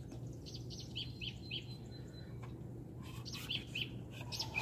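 Birds chirping: quick series of short, high notes in two bursts, over a faint steady low hum.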